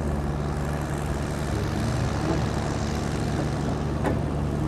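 A tractor diesel engine running steadily as a John Deere pulls a weight-transfer sled at low speed. There is one sharp click about four seconds in.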